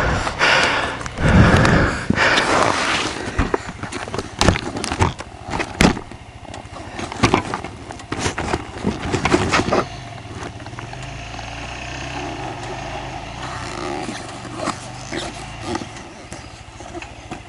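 Dirt bike on a rocky trail: a run of knocks and clatter over rocks with gusts of rushing noise, giving way after about ten seconds to the engine running steadily at a low idle.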